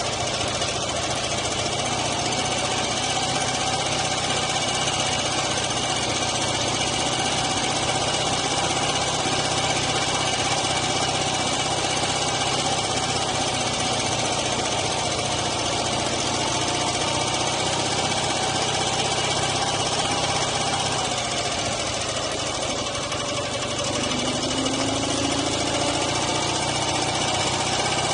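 Dnepr MT9 sidecar motorcycle's flat-twin engine running steadily under way, with wind and road rush. About three-quarters of the way through, the engine note drops and then picks up again.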